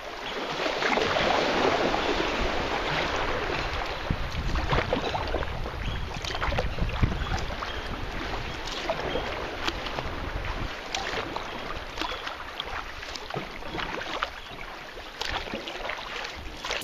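Sea water splashing and lapping around a sea kayak as it is paddled, with many small splashes and a louder rush of water in the first few seconds. Wind rumbles on the microphone underneath.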